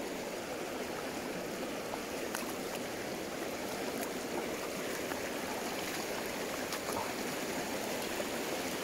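Shallow river water rushing steadily over stones and small rapids, with a few faint clicks.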